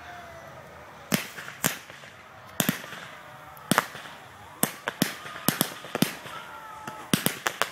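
Display fireworks going off in an irregular series of more than a dozen sharp bangs, starting about a second in and coming faster and closer together near the end.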